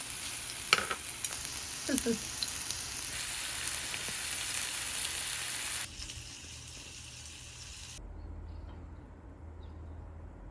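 Food frying and sizzling in a hot pan, with a few sharp clicks. About six seconds in, the sizzle cuts off and gives way to a quieter steady hum.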